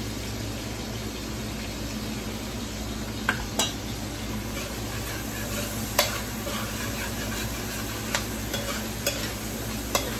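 Chopped peppers and garlic sizzling steadily as they sauté in a frying pan. A cooking utensil stirs them, clicking and scraping against the pan several times from about three seconds in, the loudest knock about six seconds in.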